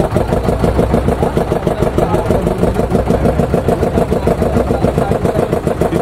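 Motorboat engine running steadily with a fast, even beat.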